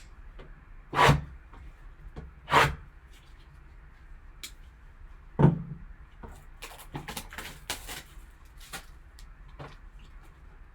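A sealed trading card box being handled and opened by hand: three sharp knocks, then a run of smaller clicks and taps.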